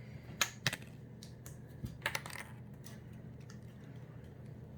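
Goldfish crackers clicking and clattering as they are handled and gathered up: a few sharp clicks in the first second, a small cluster about two seconds in, then faint scattered ticks.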